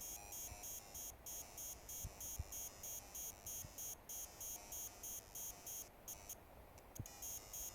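Greeting-card-type sound chip from an electric LED candle, played through a small 8-ohm speaker: its candle soundfile comes out as a high, buzzy chain of rapid electronic bleeps, about three a second, broken by a few short pauses.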